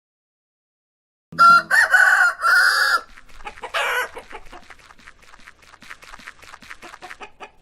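A rooster crows once, a loud call in three parts starting about a second in, then chickens cluck softly in quick short notes.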